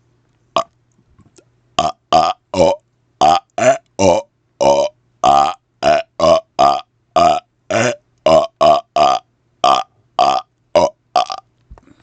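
A man burping rapid-fire on command: about twenty short burps in quick succession, two to three a second, each under half a second long.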